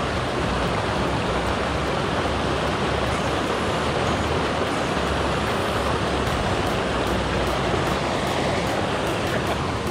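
Steady rushing of a shallow mountain stream, an even, unbroken noise.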